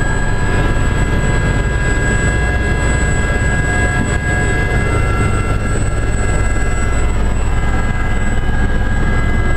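Aérospatiale Gazelle helicopter heard from inside its cabin: a steady low rumble of rotor and engine with a high, steady turbine whine above it, as it hover-taxis in to a concrete helipad.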